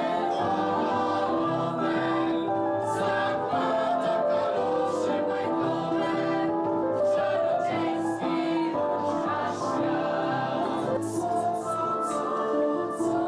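A small choir of young men and women singing a song together, holding long notes.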